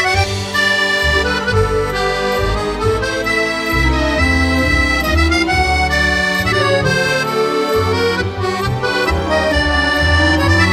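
Accordion music: a melody of held reedy notes over a pulsing bass accompaniment.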